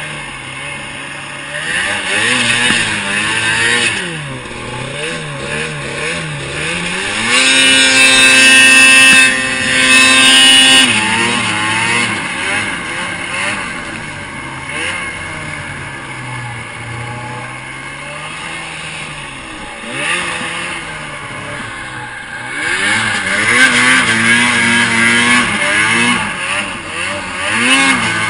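Supercharged Arctic Cat M8 800 two-stroke snowmobile engine revving up and down with the throttle while climbing in powder. About a third of the way in it is held at steady high revs for a few seconds, which is the loudest part.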